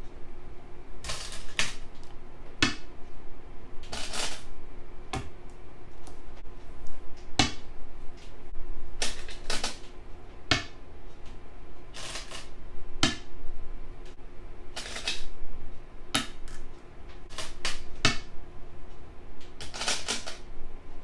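Go stones being played onto a board: sharp, irregular clacks about once a second. A few are longer, clattery clusters.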